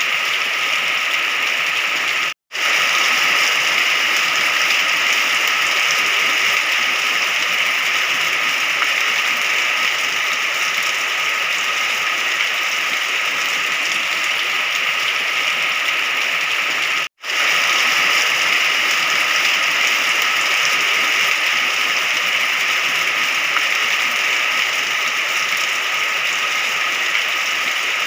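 Steady rain, an even hiss with no separate drops or thunder standing out. It cuts to silence for an instant twice, about two and a half seconds in and about seventeen seconds in.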